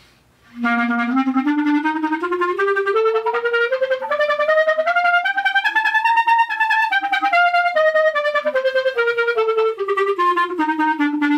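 Clarinet played with double tonguing: rapid, short repeated notes that climb a scale step by step about two octaves and then come back down. It starts just under a second in.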